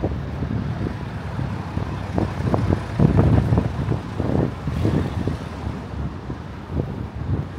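Road traffic going by on a city bridge: a continuous low rumble of passing cars and other vehicles, loudest about three seconds in.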